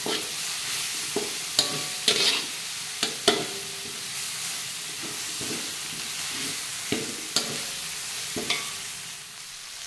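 Ground chilli spice paste sautéing in a wok, giving a steady sizzle, while a spatula stirs it and scrapes and clicks against the pan about eight times.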